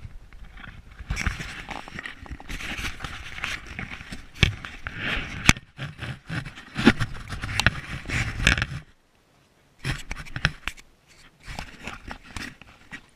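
Handling noise: a camera being rubbed, scraped and knocked as it is moved about on a tabletop. There are several sharp knocks through the first nine seconds, a brief drop-out about nine seconds in, then scattered lighter clicks and rubs.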